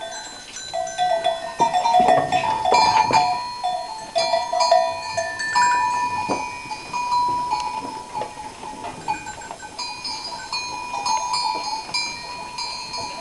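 Bells worn by a herd of goats clinking and ringing as the goats shuffle about, several different notes overlapping, with a few knocks about two to three seconds in.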